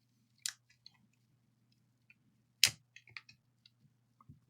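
A few sharp, small clicks and taps from handling a laptop motherboard and plugging in its keyboard ribbon-cable connector, the loudest about two and a half seconds in, over a faint steady low hum.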